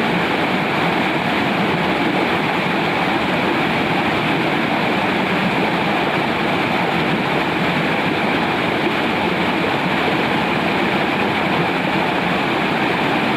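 Water rushing steadily in a small ditch, an even hiss that does not change.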